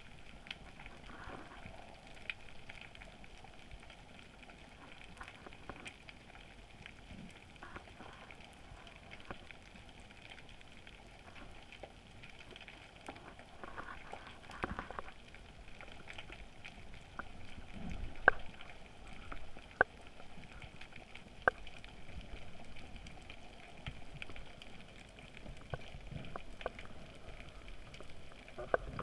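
Underwater ambience picked up by a camera in its housing: a faint, steady crackling hiss, with a few sharp clicks about two-thirds of the way through.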